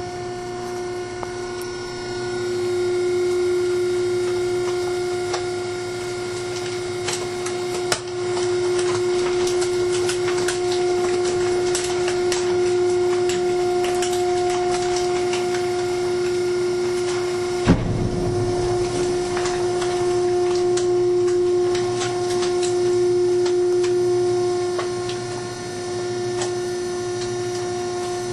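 Trash compactor running: a steady motor hum with many small crackles and clicks as the load is pressed. There is a knock about eight seconds in and a sharper one around eighteen seconds.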